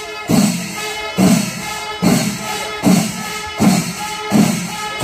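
Percussion-led music: heavy drum strokes a little under a second apart over a bright jingling cymbal layer and a held pitched tone.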